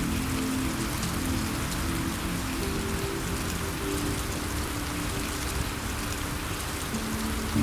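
Steady rain, with soft music of low held notes that shift slowly underneath.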